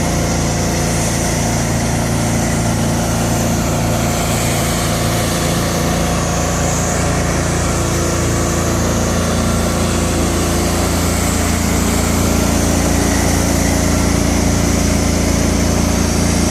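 Gas pressure washer engine running steadily at high speed, with a broad hiss over its hum; it grows a little louder around the middle.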